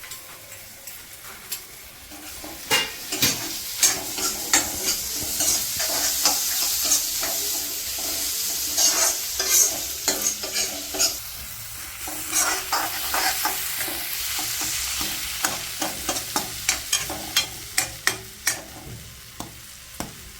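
Onion-tomato masala frying and sizzling in a pan while a spoon stirs and scrapes it, with many quick clicks and scrapes of the spoon against the pan. The sizzle swells about two seconds in and eases toward the end.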